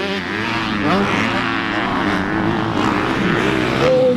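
Dirt bike engine revving, its pitch rising and falling as the rider opens and closes the throttle through the jumps, with a sharper rise near the end.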